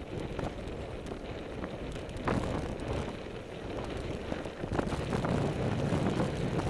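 Wind noise on the microphone mixed with the low rumble of a Blokart land yacht rolling over wet, rippled sand, with scattered knocks and rattles.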